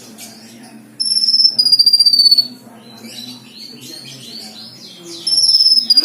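Cucak kinoi songbird singing. It gives two loud phrases, about a second in and again near the end, each a high held whistle that steps slightly lower. Softer quick chattering notes come between the phrases.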